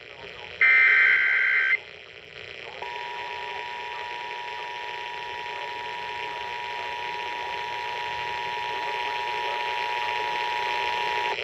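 Emergency Alert System signalling broadcast over AM radio: the last of three SAME header data bursts, a harsh one-second digital warble, about half a second in, then after a short pause the EAS two-tone attention signal, a steady dual-tone alarm lasting about eight seconds. It marks the activation of a severe thunderstorm warning.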